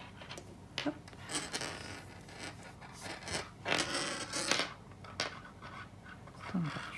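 Knitting on a metal circular needle: the needle tips click and scrape together while thick wool yarn rubs and rustles as stitches are worked, in a series of sharp clicks and short scratchy bursts.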